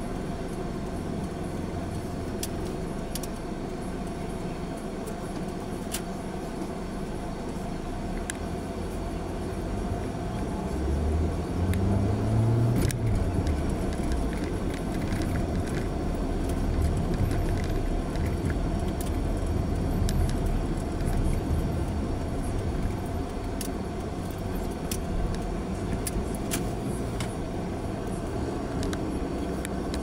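Car interior noise while driving: a steady engine and road rumble. About eleven seconds in it gets louder and the engine note rises in pitch. Scattered light clicks and rattles run through it.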